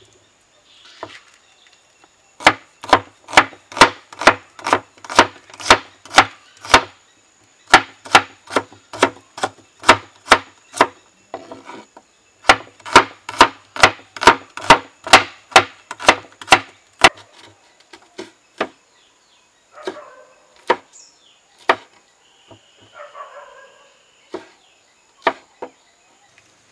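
Large knife chopping onion on a wooden cutting board: steady runs of sharp chops, about two to three a second, broken by short pauses, then slower, scattered knocks of the blade on the board.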